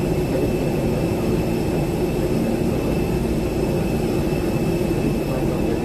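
Steady rush and hum of an airliner cabin during boarding, with a faint high whine held throughout.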